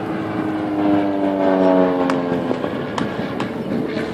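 A powered aircraft passing with a steady engine tone that slowly drops in pitch and fades out about two and a half seconds in, over background noise with a few sharp clicks.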